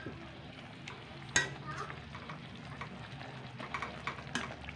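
Pork belly frying and sizzling in a sauce just thickened with cornstarch, stirred with a metal spoon in a metal pan. The spoon scrapes and clinks against the pan, with a sharp clink about a second and a half in and another near the end.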